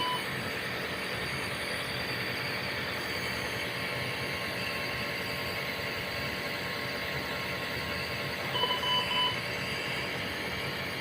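Steady hiss of NICU medical equipment, with a quick run of three electronic beeps from a monitor about nine seconds in.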